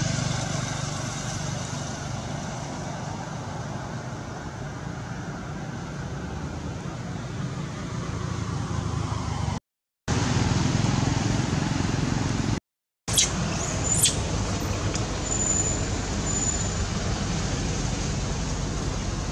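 Road traffic noise: a steady rumble and hiss of passing vehicles, cut by two brief dropouts to silence, with a few sharp high squeaks about two-thirds of the way through.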